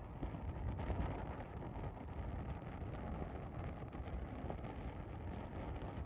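Wind buffeting the microphone over a steady low rumble, a little stronger about a second in.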